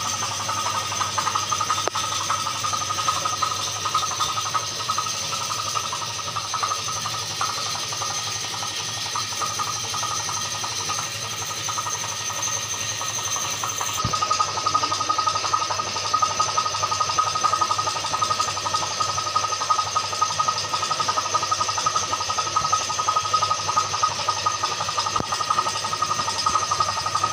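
Steady hum and hiss of a running machine, unbroken, with a small shift in its tone about halfway through.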